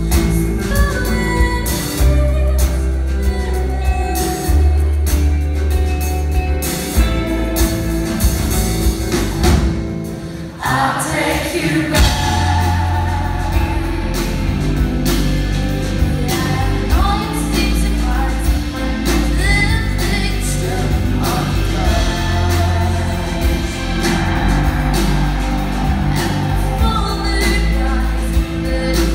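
Rock band playing live with lead vocals over drums, bass and guitar. The full band drops out briefly about ten seconds in and comes back in full about two seconds later.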